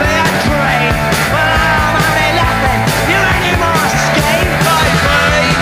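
Loud punk rock music: a band with electric guitars, drums keeping a steady beat, and a vocal line.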